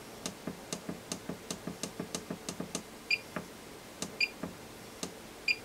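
Repeated presses of the green push-button on an Akatherm CB315-U electrofusion welder's front panel: a fast run of about fifteen clicks with no response, then a few slower presses, three of which bring a short high beep from the welder. Most presses are not registering: the switch is playing up and is due for replacement.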